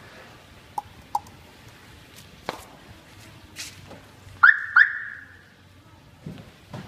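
A car's alarm chirps twice, two short high beeps about half a second apart, after a few light clicks and knocks. Faint low thumps follow near the end.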